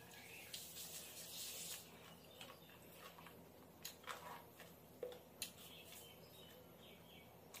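Faint eating sounds: wet clicks and smacks of chewing and of fingers mixing rice and curry on a plate, a few soft short ticks scattered over a quiet room.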